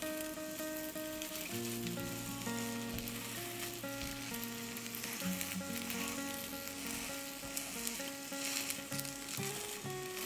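Egg sizzling in an oiled tamagoyaki pan as a silicone spatula presses the rolled omelette, with background music of changing single notes.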